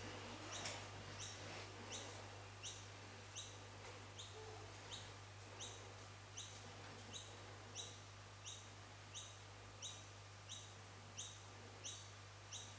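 A bird chirping over and over: a short, high, rising chirp about every 0.7 s, very evenly spaced, faint, over a steady low hum.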